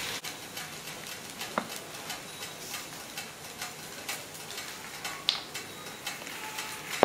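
Takoyaki batter sizzling on a hot takoyaki plate, a steady quiet hiss with scattered light clicks and ticks, a couple of them sharper.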